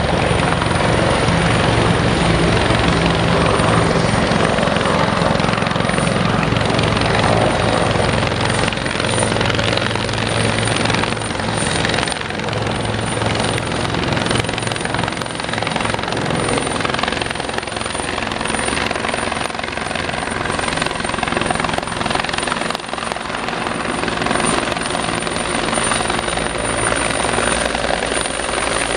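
Bell 412 helicopter flying in low on its landing approach: the steady beat of its four-bladed main rotor over the whine of its twin turboshaft engines.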